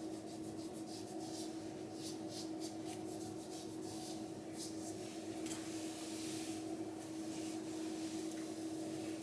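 Short rubbing strokes of a wipe across skin, cleaning excess lace-wig glue off the hairline, over a steady low hum.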